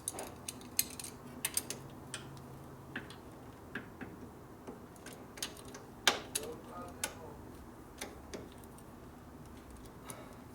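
Irregular light metal clicks and taps of a hand wrench working a nut down until it is tight.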